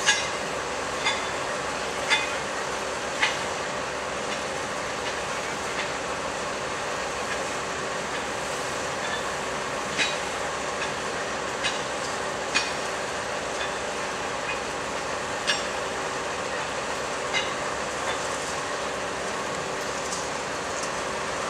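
Track maintenance machinery working during railway tie replacement: a steady engine hum with sharp metallic knocks, about one a second at first and then scattered.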